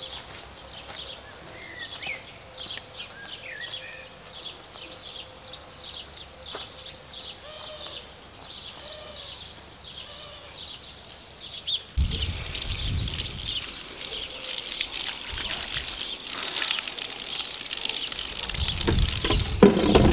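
Birds chirping and singing, short repeated calls over a quiet outdoor background. About twelve seconds in the sound jumps louder: a low rumble and rustling noise come in under the birdsong and grow heavier near the end.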